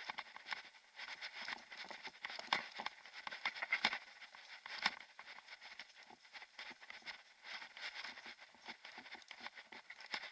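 Mountain bike riding over a loose gravel trail: a dense crackle of tyres on grit mixed with rattling from the bike. It is busiest in the first half, with a few sharp knocks, then settles to a lighter, steady crackle.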